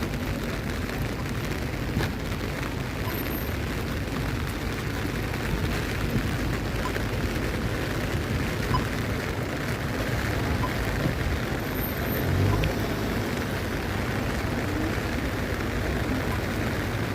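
Steady outdoor street noise: a low traffic rumble under an even hiss, swelling briefly louder about twelve seconds in.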